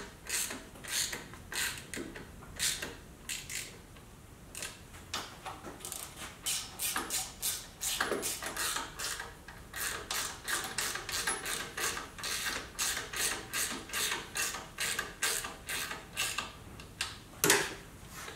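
Hand ratchet with a 1/4-inch Allen bit clicking in repeated short strokes, a couple of clicks a second with a brief lull about four seconds in, as the air cleaner's breather bolts are run down snug before torquing.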